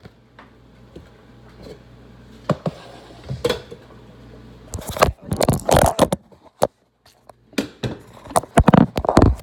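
Handling noise: a run of knocks, scrapes and rattles as kitchen items and the phone are moved about, loudest in two dense clusters about five seconds in and near the end.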